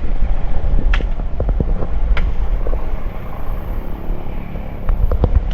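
Motorcycle running while being ridden, a steady low rumble with a few sharp knocks.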